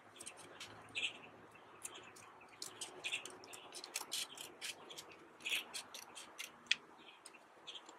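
Small scissors snipping around a circle in a sheet of paper: a run of crisp, irregular cuts and blade clicks, about two a second, the sharpest one near the end.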